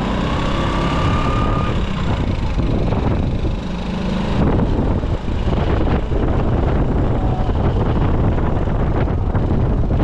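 Motor scooter riding at road speed: a steady engine and road rumble under heavy wind noise buffeting the microphone, with a faint whine rising slowly in pitch over the first couple of seconds.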